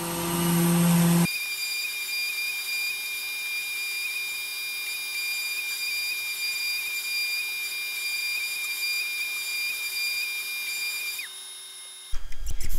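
Electric random orbit sander with a dust-extraction hose running steadily while sanding a small wooden box: a high, even whine over a hiss that winds down with a falling pitch about eleven seconds in. A louder, lower hum comes before it in the first second.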